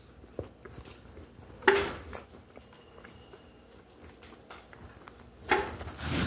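A person chewing a bite of air-fried, crispy pizza crust: faint clicking, crunching mouth sounds, with a louder mouth noise about a second and a half in and another near the end.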